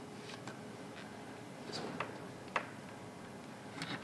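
Several small, sharp plastic clicks and taps as a multimeter's rotary selector switch is turned to the ohms range and test-lead plugs are pushed into its sockets; the sharpest click comes about two and a half seconds in.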